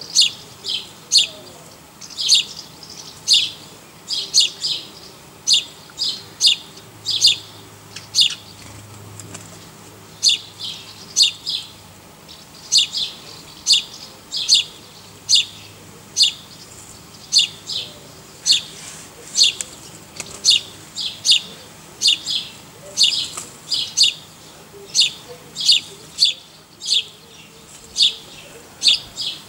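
A small bird chirping over and over: short, sharp, high chirps, mostly in twos and threes, about one or two a second and never stopping.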